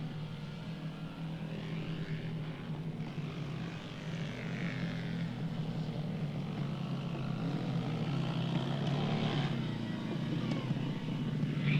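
An engine droning steadily, growing gradually louder toward the end.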